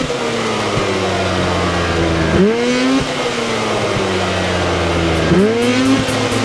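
Snowmobile engine running and revved in three quick blips about three seconds apart, each rising sharply in pitch and then sinking slowly back toward a steady idle.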